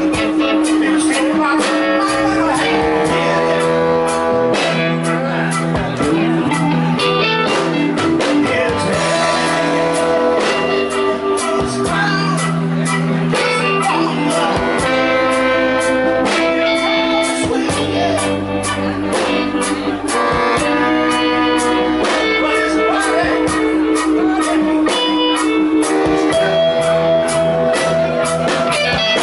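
Live band music: a horn section of baritone saxophone, trombone and trumpet playing held notes over electric guitars, with a steady beat of sharp strikes.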